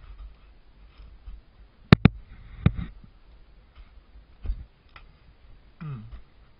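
Skis and ski poles knocking and scraping on hard snow during a descent: a few sharp clacks about two seconds in, then softer knocks.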